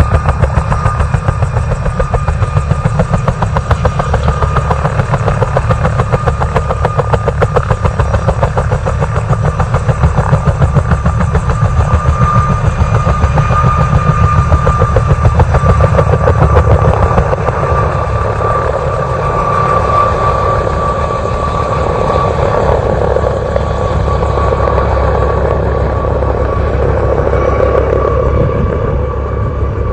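Military utility helicopter with a two-blade main rotor lifting off and flying away: fast, even rotor chop over a steady high turbine whine. The chop is strongest in the first part and softens into a smoother drone as the helicopter climbs away.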